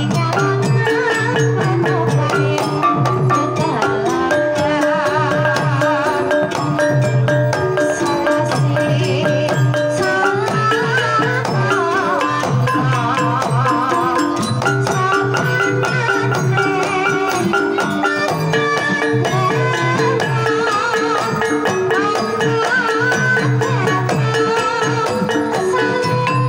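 Live Banyumasan gamelan music: a kendang hand drum keeping a rhythm under struck bronze kettle gongs and other pitched percussion, with a high melody line that wavers in pitch.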